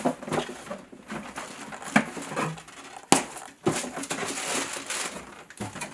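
Cardboard box being opened and handled, with rustling of the clear plastic wrap around the hand covers inside and a couple of sharp knocks, the loudest about three seconds in.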